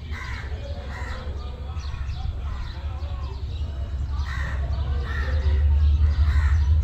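Crows cawing several times over a low rumble that grows steadily louder as a diesel locomotive approaches.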